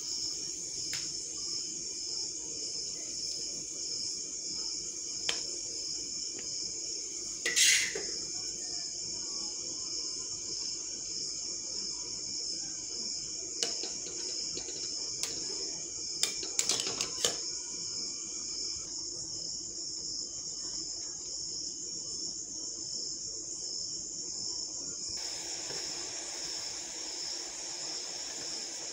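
Insects chirping steadily in a high, pulsing trill over a low background hum. A metal spatula clinks against the pan a few times, loudest about eight seconds in and again in a quick cluster around sixteen to seventeen seconds.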